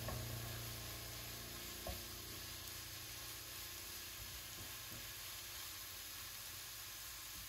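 Sliced mushrooms, grated carrot and onion sizzling steadily in hot oil in a frying pan, stirred with a wooden spatula, with one light knock about two seconds in.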